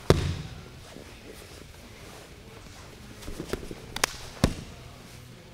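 Two grapplers moving on a foam mat: a heavy thump as the move begins, then a few sharp slaps of hands and bodies against the mat and each other, the loudest about four and a half seconds in.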